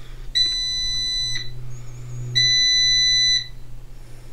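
Air fryer's end-of-cooking alarm: long electronic beeps of about a second each, two in a row a second apart, with a third starting at the very end, over a low steady hum.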